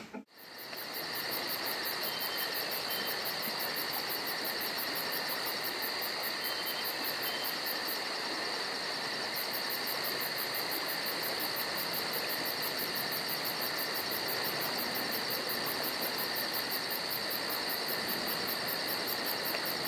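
Crickets chirring steadily: a high, unbroken trill with a fast, even pulse.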